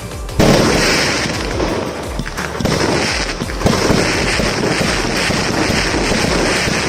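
A 190-shot multi-calibre fireworks cake (RBV-1901) firing in rapid volleys: a dense run of launch thumps and bursts over steady crackling, with a loud burst about half a second in.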